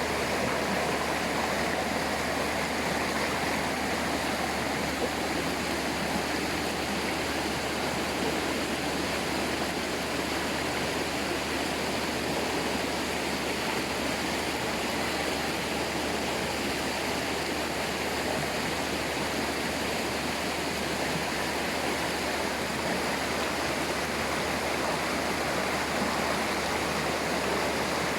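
Waterfall and stream water rushing and splashing over rocks in a steady, unbroken wash of noise.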